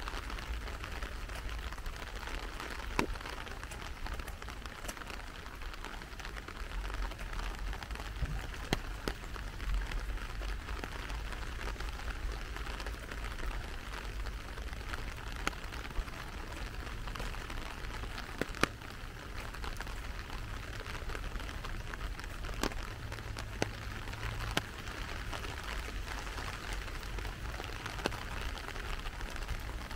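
Steady rain falling, a constant hiss with scattered sharp ticks of individual drops striking close by.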